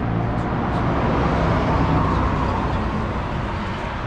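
A vehicle engine running steadily, a continuous low rumble under an even rushing noise.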